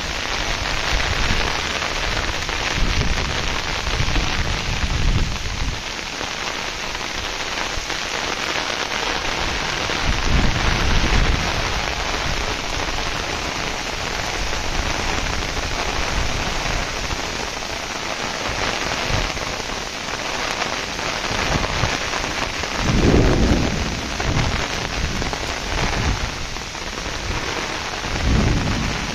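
Heavy rain pouring steadily. Low rumbles swell and fade underneath it, loudest about three-quarters of the way through and again near the end.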